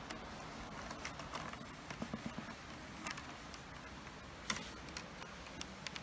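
Light, scattered clicks and taps of soaked buff willow rods knocking and rubbing against one another as they are twisted around the uprights during weaving, the clearest click about four and a half seconds in.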